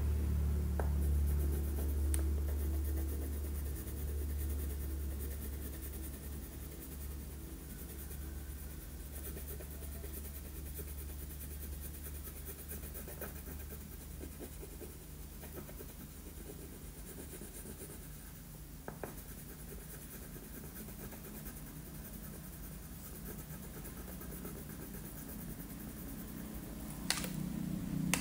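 Wax crayon rubbing and scratching on paper as a picture is coloured in, over a low steady hum that is strongest in the first few seconds. About a second before the end, a few sharp clicks as crayons in their tray are handled.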